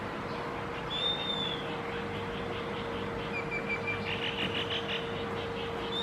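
Bird calls: a clear whistled note that rises and falls about a second in, then a few short notes and a quick run of chirps around the middle, with another whistle at the end. A steady hum and background hiss run underneath.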